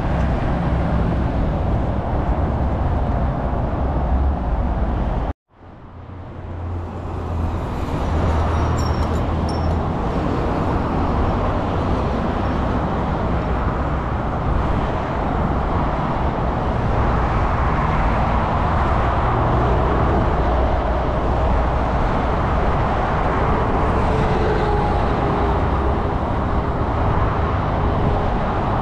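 Steady multi-lane motorway traffic, a continuous noise of tyres and engines from many cars, trucks and buses. It drops out suddenly about five seconds in and fades back up within a couple of seconds.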